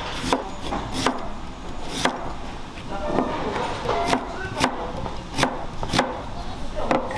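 Chef's knife slicing through a peeled white radish and knocking on a plastic cutting board, one sharp knock at a time, roughly once a second at an uneven pace.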